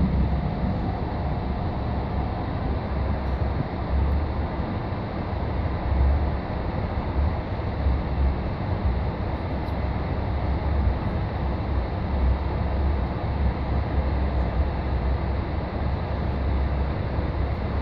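Running noise of a moving passenger train heard from inside the carriage: a steady rush with a deep rumble that swells and eases.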